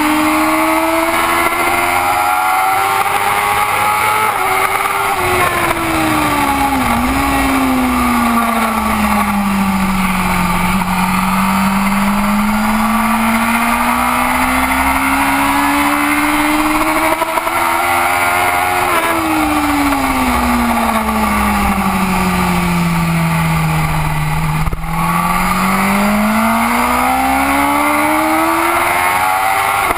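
BMW race motorcycle's engine under racing load, its pitch climbing as the bike accelerates and dropping as it slows for corners, three rises and two falls.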